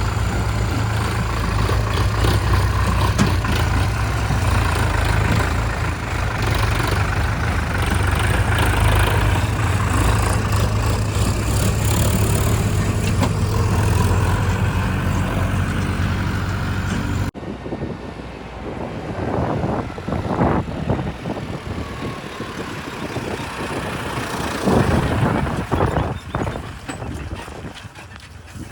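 Heavy diesel machinery engine running steadily under work, deep and even. About two-thirds of the way in, it cuts off abruptly to wind buffeting the microphone, with irregular thumps and rustles.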